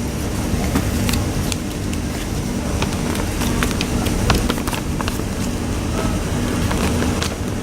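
Steady low background hum with scattered light clicks and crackles through it.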